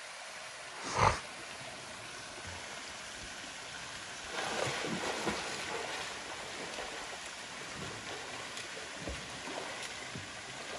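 A person swimming in a lake pool, with water splashing from the strokes, over a steady trickle of water falling from a mossy overhang. There is a brief louder sound about a second in, and the splashing grows louder from about four seconds in.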